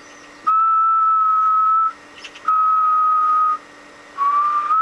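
A person whistling three long, steady notes into a transceiver microphone as a test tone to key the transmitter and drive the 50 MHz amplifier. The last note starts a little lower and rises.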